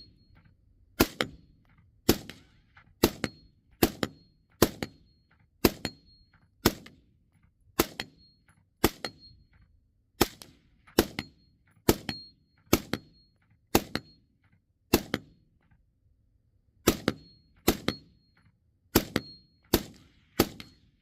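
Suppressed Ruger AR-15 in 5.56 with a JK Armament SBRX 155 suppressor firing about twenty single shots at roughly one a second, with a pause of about two seconds a little past halfway. Each shot is a sharp crack with a brief high ring after it.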